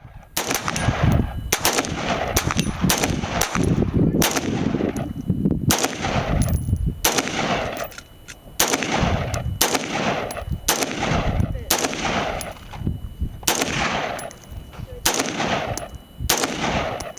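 AR-15 rifle fired rapidly in semi-automatic, a long string of shots about one to two a second, each with a trailing echo.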